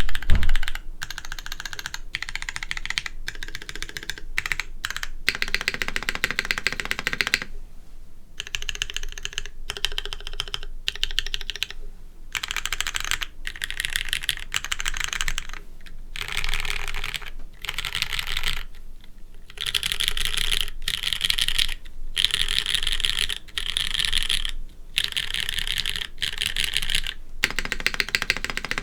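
Typing on a custom mechanical keyboard: Cherry MX2A Brown tactile switches in a top-mounted Merisi Sessantacinque with an FR4 plate and GMK Moon Dust keycaps. The clacks are fast and continuous in runs of a few seconds with short pauses between, and the sound is deep and muted. A single heavier, deeper thud comes right at the start.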